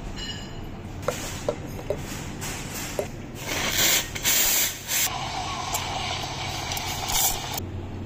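Simonelli espresso machine's steam wand: a few sharp clicks, then loud hissing bursts as the wand is purged. A steadier hiss follows as it steams milk in a steel pitcher, and it cuts off abruptly near the end.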